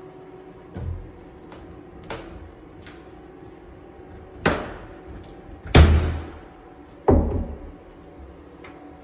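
Closet and cabinet doors being opened and handled: a series of knocks and thuds, three louder ones in the second half, the loudest about six seconds in, over a faint steady hum.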